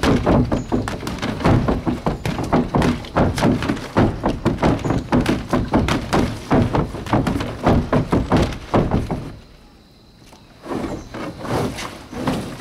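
Gloved punches landing on a freestanding rubber human-torso punching bag in a fast, unbroken run of thuds for about nine seconds, then a short lull and a few more hits near the end.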